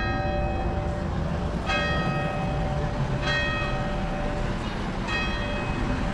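Church bell tolling in single strokes about every one and a half to two seconds, each stroke ringing on as it fades. A low rumble of street noise lies under it.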